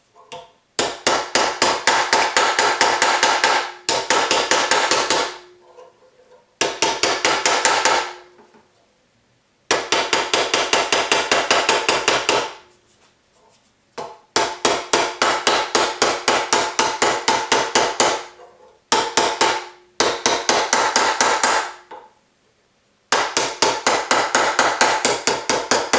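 White-headed forming hammer rapidly tapping a reticulated silver strip over an anticlastic stake held in a steel vise, several blows a second in runs of a few seconds with brief pauses between, the blows ringing faintly. The strip is being formed in its second course of the anticlastic curve.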